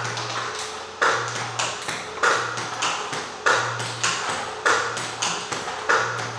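Table tennis ball being hit with repeated forehand strokes: a sharp click of bat on ball about every 1.2 seconds, with lighter clicks of the ball bouncing on the table in between.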